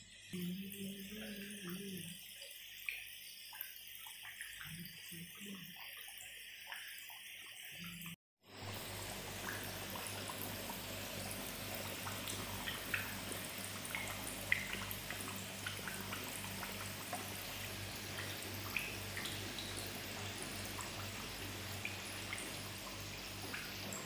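Balushahi dough rings deep-frying in hot oil: a steady sizzling hiss with scattered small pops, starting suddenly about a third of the way in. Before it, a quieter stretch with a short low tone near the start and a few soft knocks.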